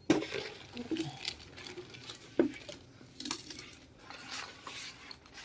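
Laptop backpack being handled and pulled out of its clear plastic bag: plastic crinkling with scattered clicks and knocks from the bag's hardware, the sharpest a little over two seconds in.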